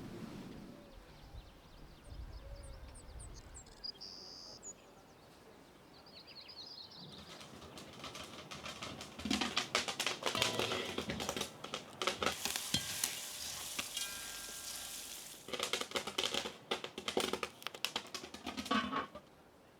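Dry corn leaves and husks rustling and crackling in irregular bursts, with a short lull near the middle. A few short, high bird chirps come in the first few seconds.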